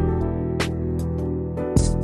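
Background music: held notes with sharp percussive hits about once a second.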